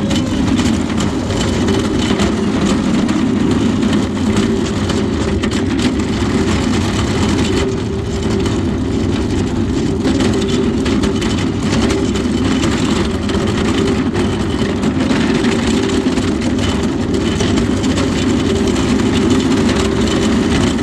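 Steady, continuous engine and road noise of a vehicle on the move, heard from inside, with the sound weighted to the low end and no marked changes.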